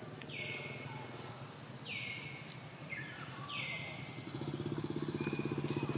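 A motorcycle engine running, its low pulsing hum growing louder from about four seconds in as it approaches. Over it, a bird gives short high calls every second or two, each dropping in pitch onto a held note.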